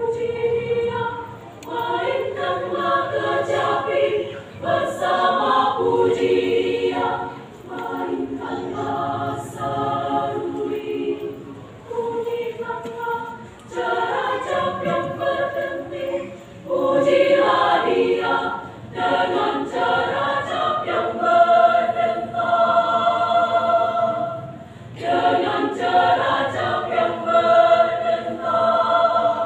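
Women's church choir singing a hymn in parts without accompaniment, in sung phrases a few seconds long with short breaks for breath between them.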